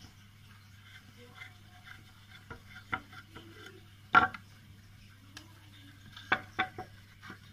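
Small steel bolts being handled and set into a plywood board: scattered light clicks and knocks, the loudest a sharp knock about four seconds in and a quick cluster of clicks near the end.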